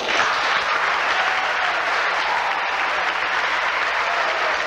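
Audience applauding, a dense steady clapping that breaks out suddenly and holds at full strength.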